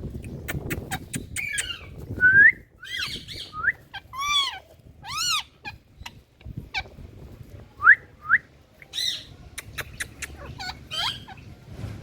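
Indian ringneck parakeets calling: a string of shrill screeching calls, many rising then falling in pitch, with short sharp clicks in between.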